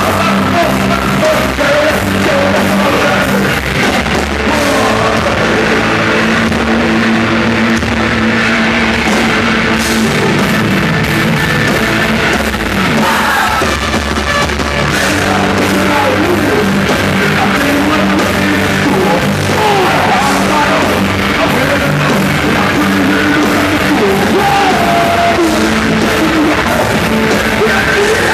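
A live rock band playing loud, hard-driving music, with guitars, drums and a voice singing over it.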